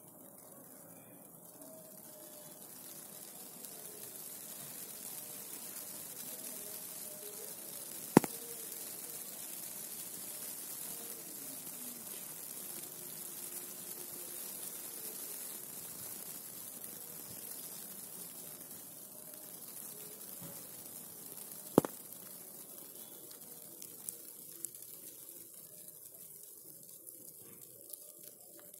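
Steady electrical sizzling and hissing, from snow-laden light poles and wiring carrying current, that swells over the first few seconds and fades near the end. Two sharp snaps stand out, one about a third of the way in and another about three-quarters through.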